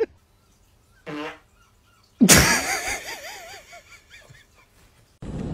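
A pug yawning wide with a long, wavering squeaky whine that starts suddenly about two seconds in and trails off. There is a short vocal sound about a second in, and a steady rush of wind noise begins near the end.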